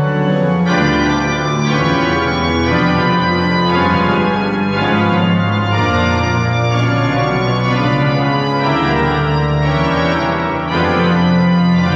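Cathedral pipe organ playing sustained full chords that change every second or two, ringing through the stone nave.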